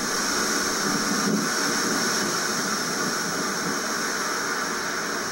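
Strong gusting wind with rain, a steady loud rushing hiss, at gusts the speaker puts at 70 miles an hour.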